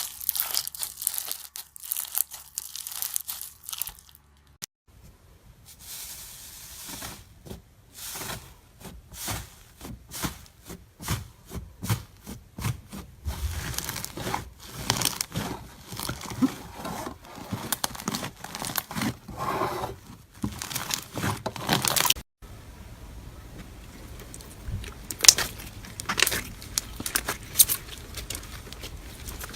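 Slime being squeezed and pulled apart by hand, making a run of sticky crackling and crunching pops, with sudden changes in sound twice where one clip cuts to the next.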